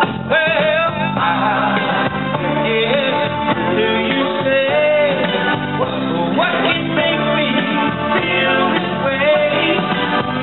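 A man singing into a microphone, his amplified voice over backing music with guitar.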